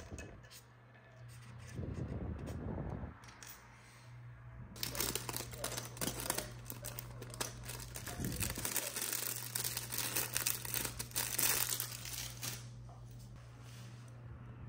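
Small clear plastic parts bag crinkling and crackling as it is handled and opened, for about eight seconds starting about five seconds in. A few soft handling bumps come earlier.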